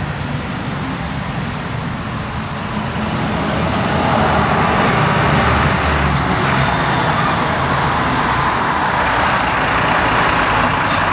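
Diesel engine of a Mercedes-Benz fire service turntable ladder truck pulling out and approaching, growing louder about four seconds in.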